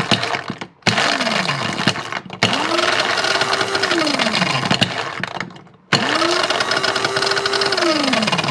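Electric blade coffee grinder run in pulses with a hard gumball inside: the motor whirs up to speed and winds down after each release, with the gumball rattling against the blade and bowl. A short pulse is followed by two longer runs of about three seconds each. The blade is barely grinding the gumball, only chipping bits off it.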